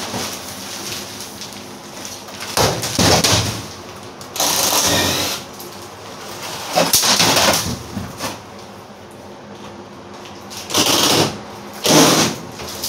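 Cordless drill running in five short bursts of about a second each, driving screws out of a food truck's ceiling panels as they are taken down.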